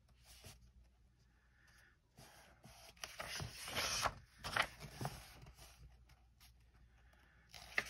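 A page of a softcover colouring book being turned by hand: paper rustling and swishing for about three seconds, starting about two seconds in.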